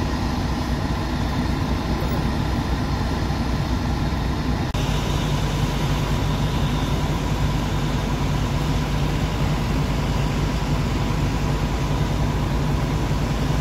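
Heavy diesel fire-truck engines idling steadily, a loud continuous low drone. About five seconds in the sound shifts to a slightly louder, steadier idle, close to a parked aerial ladder truck.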